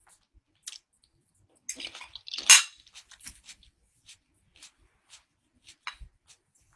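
Tableware being handled during a snack: scattered small clicks and knocks, with a short burst of clatter about two and a half seconds in.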